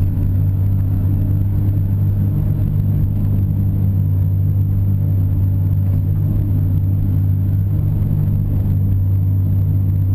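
Diesel engine of a CAT 330 excavator running steadily at working speed while the boom and bucket dig, heard from inside the operator's cab as an even low hum.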